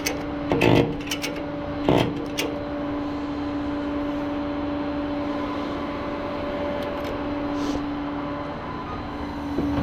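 Flatbed tow truck's hydraulic system running with a steady whine at one pitch, with a few metal clanks in the first couple of seconds; the whine stops about eight and a half seconds in.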